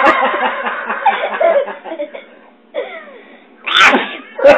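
Laughter and giggling that dies away after about a second and a half, then two short, sharp bursts of breath near the end.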